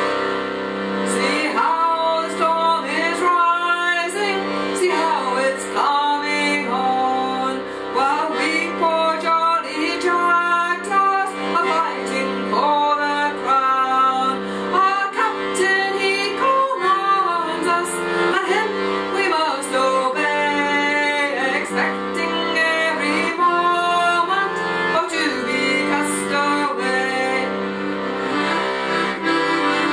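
A woman singing a folk song to her own piano accordion accompaniment, the accordion holding steady chords under the voice. The singing comes in about a second in.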